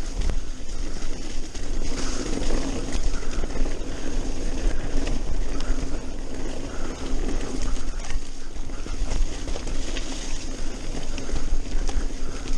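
Mountain bike rolling fast along a dirt forest trail: tyres running over the ground with the frame and parts rattling over bumps in frequent small knocks, over a steady rumble of wind on the microphone.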